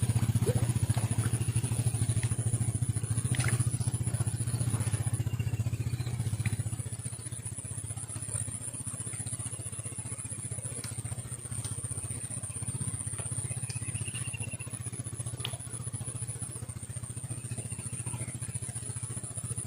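A small engine running steadily, cutting in suddenly, with a steady high-pitched whine above it and a few light clicks.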